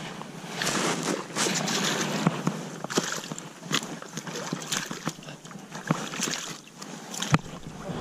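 Water sloshing and splashing in uneven swells, with irregular sharp knocks and clicks; the loudest knock comes near the end.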